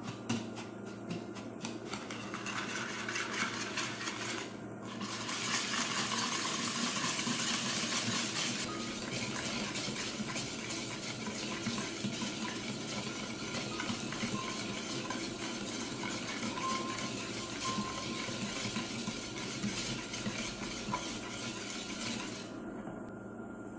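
Wire balloon whisk beating egg yolks, custard powder and sugar in a bowl: the wires click rapidly and steadily against the bowl, a little harder for a few seconds near the start. The yolks are being mixed until the sugar dissolves.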